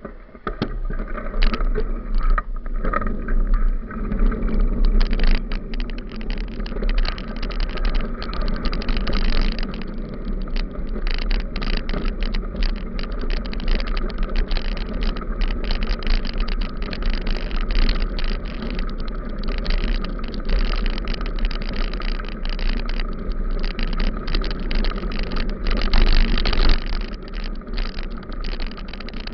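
Bicycle rolling along a dirt and gravel road, heard from a camera mounted on the bike: steady wind rumble on the microphone under a constant crackle and rattle of the tyres and bike over the gravel.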